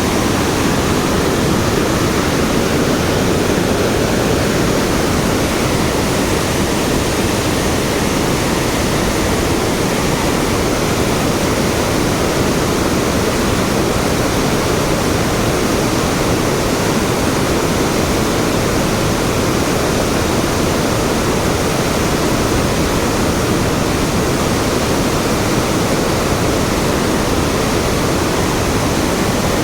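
Large volume of water rushing steadily, a loud, unbroken roar of flowing water.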